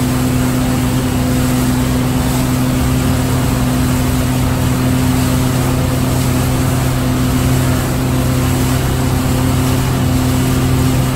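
Motorboat engine running steadily at cruising speed, a constant low drone, over the rushing churn of the wake behind the stern.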